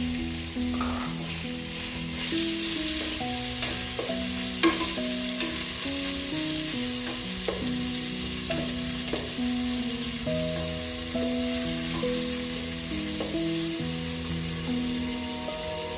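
Beef cubes sizzling as they brown in hot oil, with a wooden spoon scraping and knocking against the aluminium pot now and then as they are stirred. Background music plays underneath.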